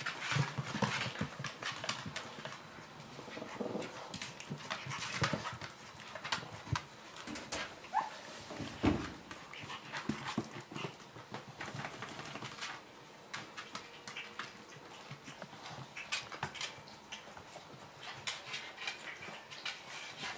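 Border terriers playing on a tiled kitchen floor: claws clicking and scrabbling on the tile and rug in irregular flurries, with a few brief dog vocal sounds.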